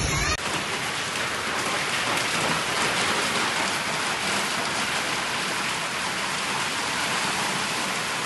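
Heavy rain mixed with hail pelting down: a dense, steady hiss of countless small impacts.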